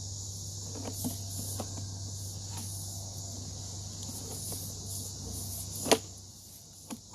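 A steady low electrical hum and a continuous high-pitched hiss or trill. Over them come a few faint clicks and one sharp click about six seconds in.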